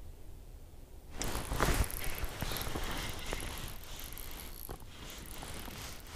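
Spinning reel on an ice-fishing rod being cranked, its gears and bail whirring and clicking steadily as line is wound in. The reeling starts about a second in.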